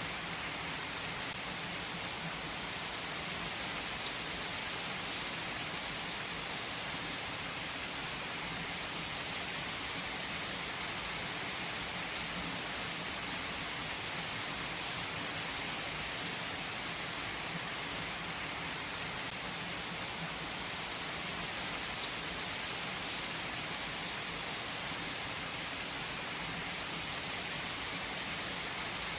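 Heavy rain falling steadily on trees, a dense even hiss with the odd louder drop tick.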